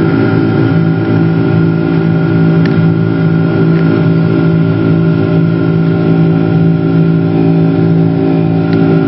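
Boeing 747 jet engines and rushing air heard from inside the cabin during the climb after takeoff: a loud, steady drone with several held tones.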